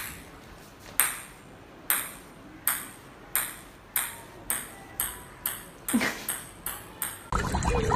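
Plastic ping-pong ball bouncing on a tile floor: a string of sharp ticks that come faster and faster as the bounces shorten. Near the end the ticks give way to a steady rush of water.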